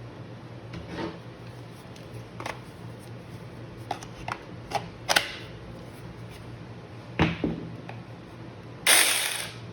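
Saker mini electric chainsaw's chain being pulled round the bar by hand to check the tension: a string of light clicks and knocks, then near the end a loud rasping, ratchet-like run of the chain links over the sprocket lasting just under a second.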